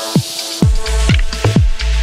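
Electronic background music with a steady kick drum about twice a second; a heavy deep bass comes in about half a second in.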